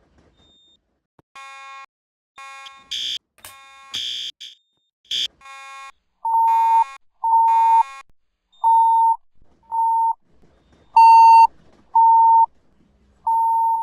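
Fire alarm signal sounding between voice evacuation announcements. It starts with harsher, buzzy beeps, and from about six seconds in it settles into a regular series of clean, high beeps, about one a second.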